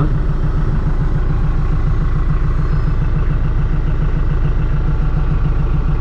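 TYM T474 tractor's diesel engine idling steadily shortly after a cold start, heard from inside the closed cab, with an even low pulsing.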